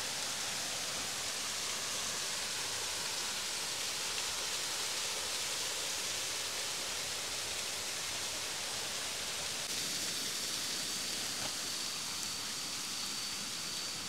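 Waterfall: a steady, even rush of falling water. About ten seconds in, a thin, steady high tone joins it and holds.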